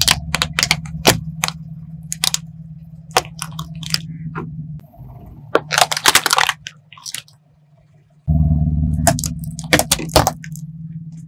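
A car tyre rolling over and crushing a plastic toy car: a quick run of sharp plastic cracks over the car engine's low running. About six seconds in comes a dense burst of crunching as it flattens a plastic cup of red jelly. Near the end the engine hum returns with a few more cracks as the tyre crushes more objects.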